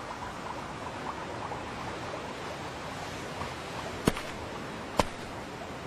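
Two footsteps of shoes on grass, sharp and clear, about a second apart near the end, over a steady hiss of seaside ambience.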